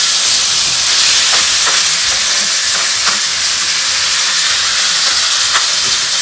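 Diced raw chicken sizzling in a hot frying pan of oil, a loud, steady hiss. A few faint taps come from the knife as the last pieces are scraped off the cutting board into the pan.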